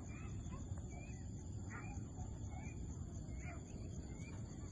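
Open-air field ambience: a low rumble of wind on the microphone under a steady high insect drone, with short bird chirps every second or so.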